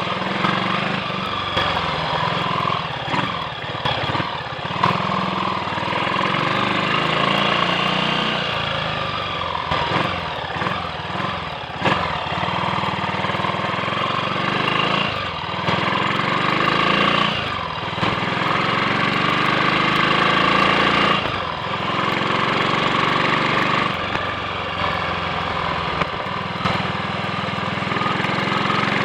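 Triumph Sports Cub's single-cylinder four-stroke engine running as the motorcycle is ridden, its note dipping briefly and picking up again several times.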